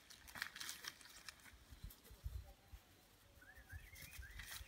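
Faint rustling and crackling of tulip leaves and stems as a beagle puppy pushes and bites through the plants, in short bouts about half a second in and again near the end. A few short bird chirps come in the second half.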